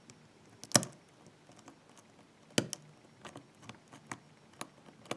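Small metallic clicks and ticks of a hook pick working the pins of a Ruko oval pin-tumbler cylinder under a tension wrench. Two sharper clicks, one about a second in and one about halfway, stand out over fainter ticks.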